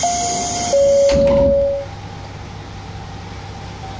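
Two-note falling door-closing chime on a KiHa 40 diesel railcar, followed about a second in by the thud of the sliding door shutting. After that the railcar's idling diesel engine gives a steady low hum.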